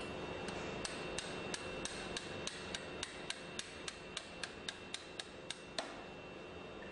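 Light, rapid hammer taps driving the pin back into the stub shaft of a progressing cavity pump's drive shaft, about three taps a second for some five seconds, ending with one harder strike.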